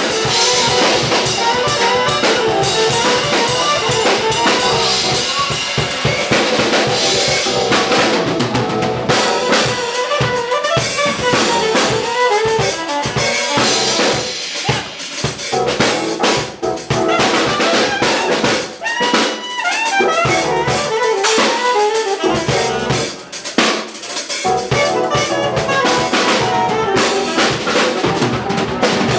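Band music led by a busy drum kit with snare, bass drum and rimshots, over melodic instruments.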